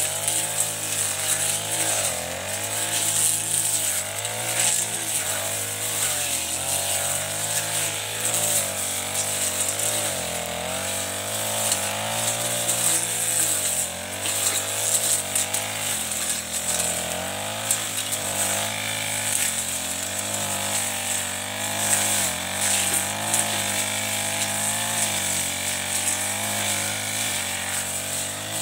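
Chinese-made Honda-type four-stroke backpack brush cutter running at working speed while cutting through tall grass and weeds. Its engine pitch wavers up and down as the load on the cutting head changes, over a steady high hiss.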